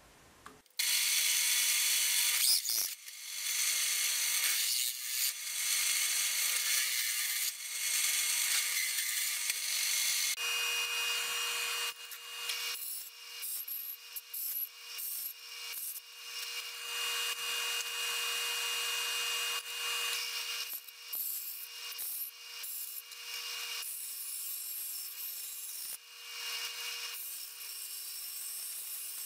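Drill press with a hole saw cutting through thin aluminum sheet, a loud harsh grinding for about ten seconds. Then a bandsaw running with a steady hum while its blade cuts the aluminum sheet, the cutting noise coming and going as the sheet is fed through.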